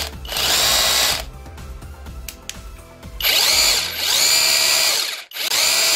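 Cordless rotary hammer drill run unloaded in the hand with no bit fitted, switched on in bursts: about a second at the start, then a longer run from about three seconds in, broken by a brief stop near the end. A very loud, high-pitched whine that rises as the motor spins up each time.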